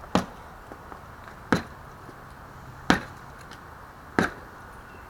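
Four sharp knocks about a second and a half apart: the rear wheel of a Yamaha R1 on a stand being kicked in to seat the loosened rear axle against the chain adjusters.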